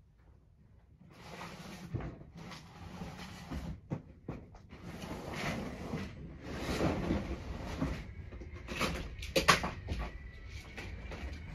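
Handling noise: irregular rustling and rubbing in bursts with short gaps, and a few sharp knocks, the loudest about nine and a half seconds in.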